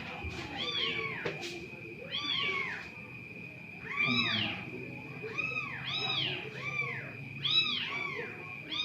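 A cat meowing over and over: many short, high calls that rise and fall in pitch, coming about two a second and often in quick pairs, over a faint steady high tone.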